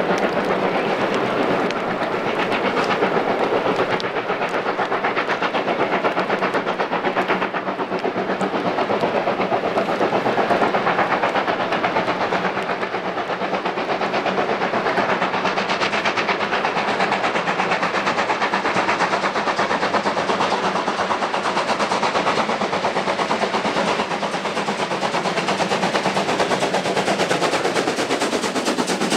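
Steam locomotive working hard, its exhaust beating in a rapid, steady chuff.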